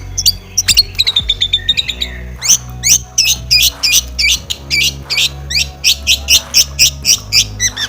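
Long-tailed shrike (cendet) singing its full 'isian' song of mimicked bird calls: a short series of falling notes, then from about two and a half seconds in a fast run of sharp, high chirps, about four a second. Background music with steady low tones plays under it.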